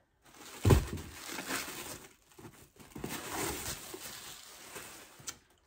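Packaging and fabric rustling and crinkling as a garment is handled and unfolded, with a thump just under a second in.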